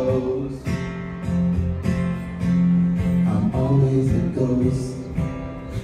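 Steel-string acoustic guitar strummed in a live solo song, chords ringing with a short break and fresh strum about half a second in.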